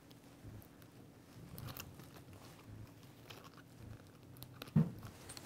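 Faint handling sounds of a plastic OptraGate lip-and-cheek retractor being worked into a patient's mouth by gloved hands: scattered soft clicks and rustles. There is a brief, louder low thump about five seconds in.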